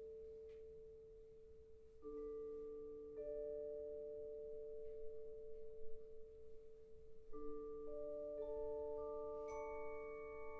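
A percussion ensemble playing softly with long held pitched tones. New notes enter about two seconds in, again a second later, and several more near the end, stacking into a sustained chord.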